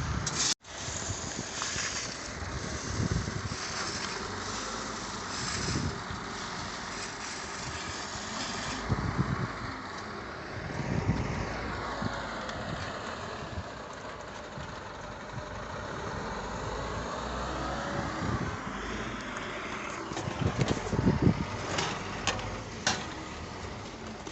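A vehicle engine running, its pitch rising and falling a couple of times, with wind on the microphone.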